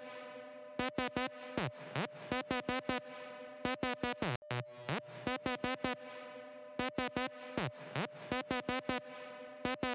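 Electronic outro music: quick clipped beats and falling synth sweeps in a short pattern that repeats about every three seconds.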